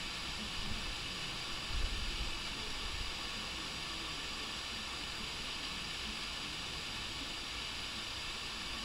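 Steady background hiss of outdoor garden ambience, with a brief low rumble about two seconds in.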